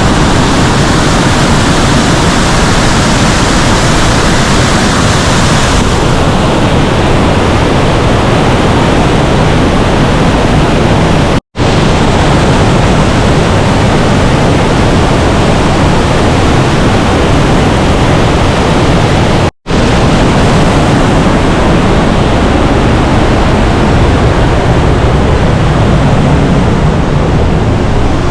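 A waterfall close up: a loud, steady rush of falling water with no break in its texture. The sound cuts out for an instant twice.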